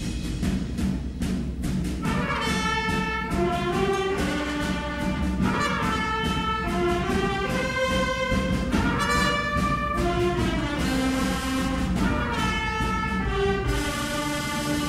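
Youth orchestra of strings and winds playing a slow melody in long held notes, carried by the brass, over a steady low bass and timpani, in phrases that start afresh about every three to four seconds.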